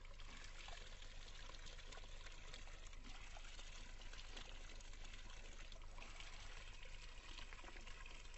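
Spring water pouring steadily from the spout of a concrete drinking fountain.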